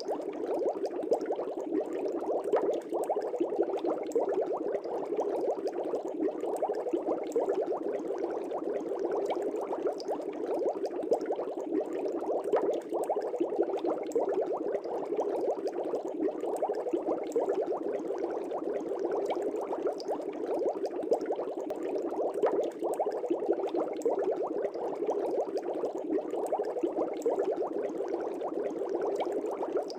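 Fish tank air bubbles bubbling steadily and densely in the water, with many small pops.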